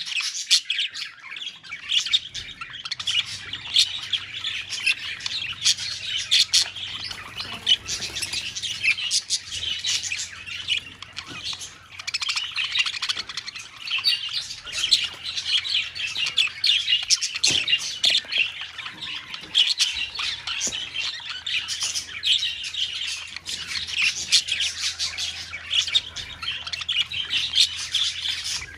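A colony of budgerigars chattering, many birds at once with continuous overlapping chirps and warbles and no break.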